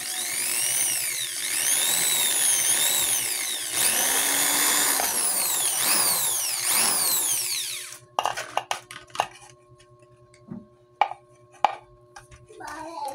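Corded electric hand drill with a thin twist bit drilling into a plastic bottle, its motor whine rising and falling as the trigger speed changes. It stops about eight seconds in, followed by a few light clicks and taps.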